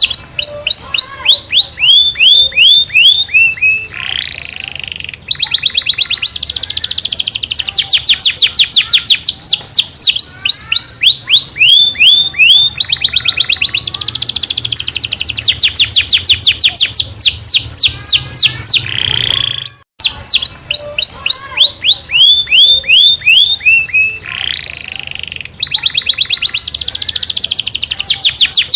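Recorded songbird song played as a masteran training track: fast series of sharp, falling chirps and rapid trills, broken by a couple of harsh rasping notes. The sequence cuts out briefly just before twenty seconds in and then repeats from the start, as a loop.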